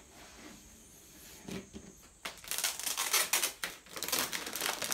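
Clear plastic wrapping crinkling and rustling in several bursts as it is pulled off a new MacBook Pro laptop, starting a little over two seconds in.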